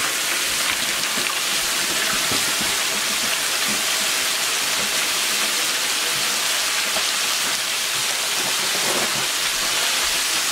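Hot oil sizzling steadily in a twin-basket deep fryer as flour-coated chicken pieces fry, an even crackling hiss with no pauses.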